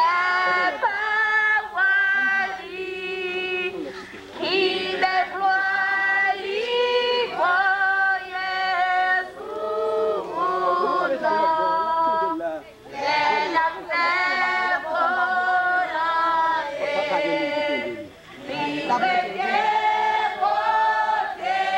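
A congregation of men and women singing a hymn together without instruments, in phrases with brief breaks between them.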